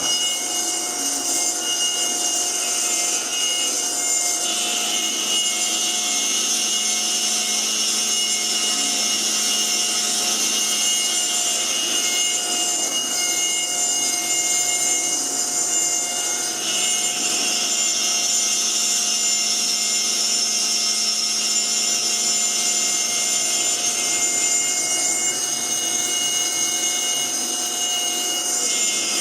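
CNC router spindle milling a small wooden ring insert. It gives a steady high whine, and the cutting noise swells and eases every several seconds as the bit moves through its passes in the wood.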